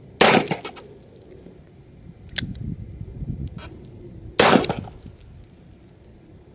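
Two handgun shots about four seconds apart, each a sharp report with a short decaying tail, with two lighter clicks and some low rumbling between them.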